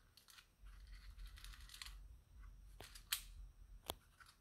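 Faint small clicks and fumbling as a vintage wind-up toy dog's winding key and body are handled, with two sharper clicks about three and four seconds in. The clockwork doesn't run.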